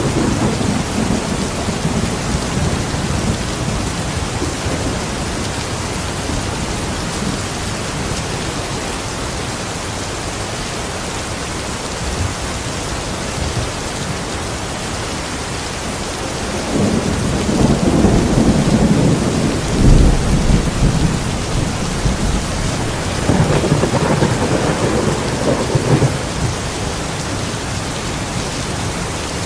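Steady heavy rain in a thunderstorm, with rolls of thunder rumbling low near the start, again about seventeen seconds in, and once more a few seconds later.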